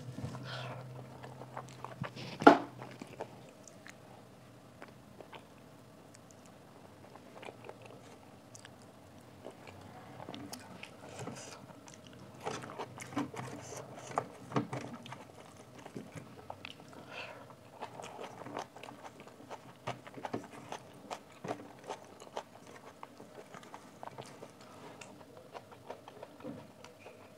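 Wet chewing and lip smacking of a mouthful of rice and besan kadhi, with fingers squishing and scraping rice on a steel plate, many small clicks throughout. A single loud sharp click comes about two and a half seconds in.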